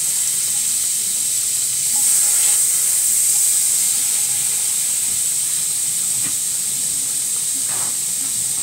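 Butter melting in a frying pan over medium heat, sizzling with a steady high hiss, and a few light clicks of a utensil stirring it.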